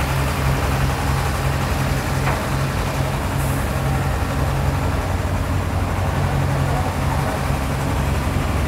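Crane truck's diesel engine running steadily with a low, even hum while its hydraulic boom lowers a heavy boat.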